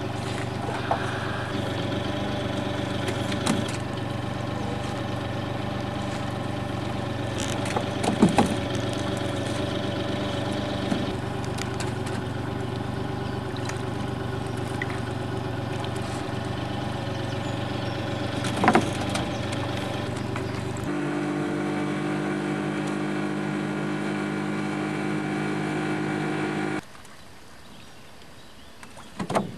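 A boat's motor running steadily, with a few short knocks standing out above it. About two-thirds of the way in its tone changes abruptly, and near the end it drops much quieter.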